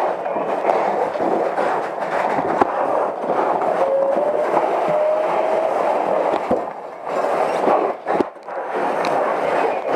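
Fire hose nozzle flowing a water stream into a burning room: a steady rushing hiss, dropping briefly twice near the end.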